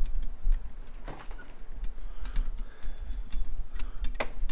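Footsteps and scattered light clicks of someone walking, over a low rumble of wind on the microphone, with a sharper knock near the end.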